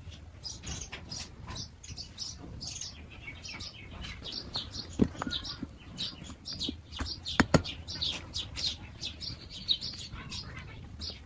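A crowd of small birds chirping continuously in quick, overlapping calls, with a few sharp taps about halfway through and again near two-thirds of the way in.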